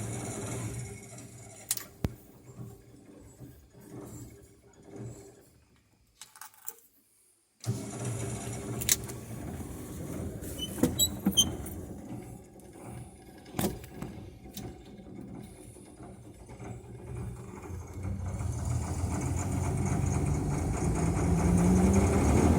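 Excavator's diesel engine being started: it runs and dies away, goes quiet for a moment about six seconds in, then comes back suddenly. A few sharp clicks and knocks follow, and over the last few seconds the engine rises in speed and loudness.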